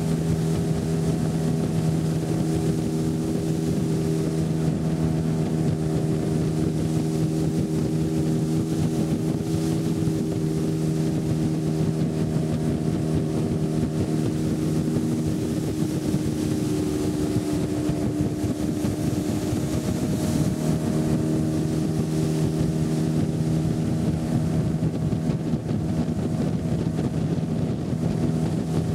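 A small motorboat's engine running steadily as the boat cruises, with an even droning hum throughout.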